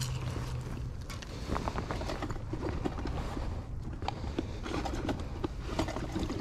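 Low rumble of wind on the microphone, with a scatter of small clicks and rustles from handling the fishing rod and line, starting about a second and a half in.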